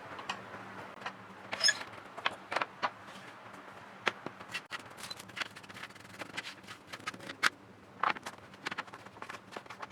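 Irregular small clicks, taps and scrapes of hard plastic and metal parts being handled, typical of a PS4 Pro console being taken apart for cleaning.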